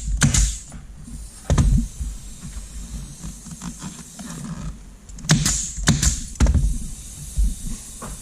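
Several short knocks and clunks over a low, steady rumble.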